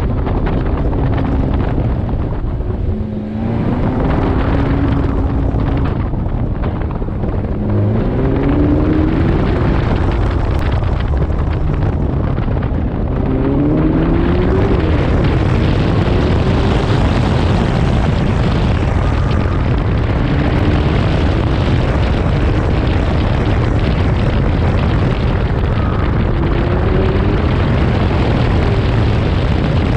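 Ferrari convertible's engine pulling hard on track, its pitch climbing and dropping several times as it accelerates through the gears, over a heavy rush of wind on the open car.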